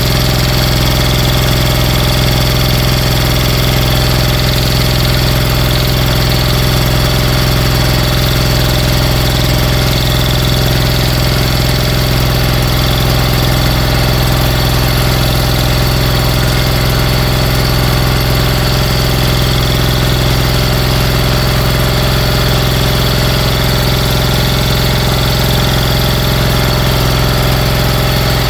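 Briggs & Stratton Intek 23 small engine running steadily at a constant speed on internals reassembled after an earlier failure: a straightened camshaft, a filed-down crankshaft and a holed cylinder.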